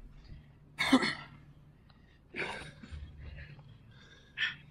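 Heavy, forceful breaths and exhales from men mid-way through a long set of burpees: three sharp bursts, the loudest about a second in.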